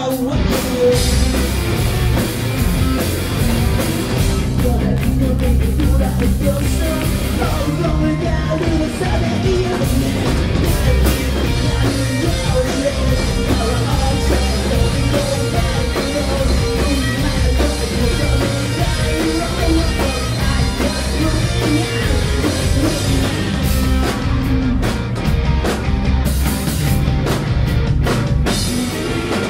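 Live rock band playing: distorted electric guitars over a driving drum kit, loud and continuous.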